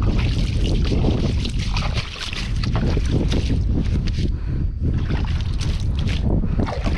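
Wind buffeting the microphone on a fishing kayak at sea, a steady low rumble, with water splashing and sloshing against the hull and scattered crackling handling noises.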